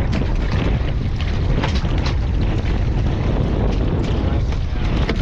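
Steady low rumble of a fishing boat at sea, with wind buffeting the microphone. Scattered short knocks and splashes come from bait being netted out of the livewell.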